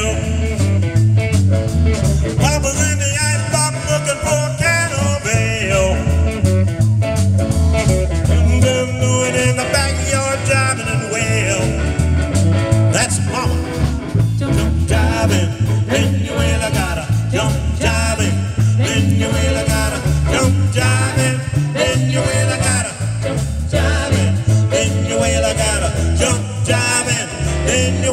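A live band playing through PA speakers: amplified guitars and bass over a steady beat.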